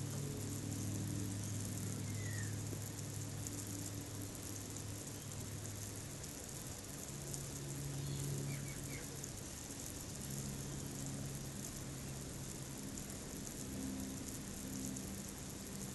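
Backyard ambience: a steady high hiss with a low hum underneath, and a few faint short bird chirps.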